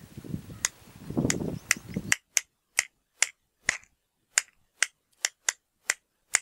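A string of short, sharp, dry clicks, unevenly spaced at roughly two a second. For the first two seconds faint low outdoor noise lies under them; after that they stand alone in dead silence.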